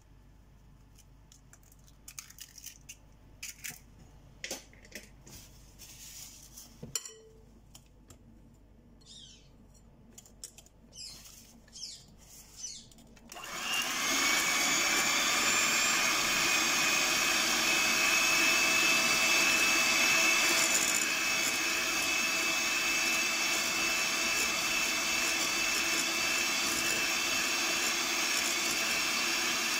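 Light taps and clicks as an egg is cracked into a glass bowl. About 13 seconds in, an electric mixer starts up and runs steadily with a high whine, beating the egg into creamed butter and sugar.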